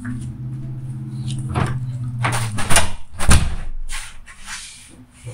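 A steady low hum that stops about halfway through, then a series of sharp knocks and bangs, like doors or cupboards being opened and shut, the loudest in the middle.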